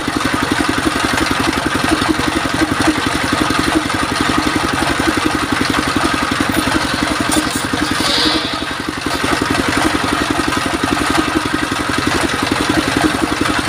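Large belt-driven circular saw ripping mahogany boards, its stationary engine running with an even, fast chugging, with a short dip in level a little past the middle.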